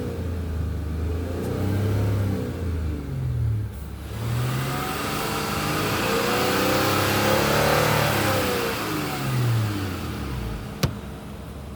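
2006 Honda Accord V6 engine revving, its pitch rising and falling several times, with a longer rev in the middle that brings up a hum; a single sharp click near the end. This is the humming the owner has heard for 20,000 miles and finds louder since the engine mounts were replaced.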